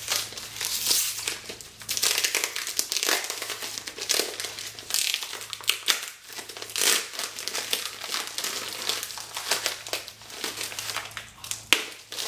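Tape and wrapping on a heavily taped package being picked at, pulled and torn, crinkling in irregular bursts.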